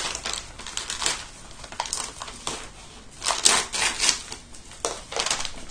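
Parcel packaging being opened by hand, crinkling and rustling in irregular bursts, loudest a little past the middle.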